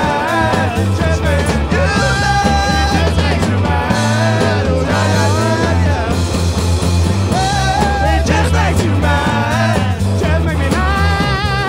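A rock band playing live: bass and drums keep a steady beat under a wavering melodic lead line.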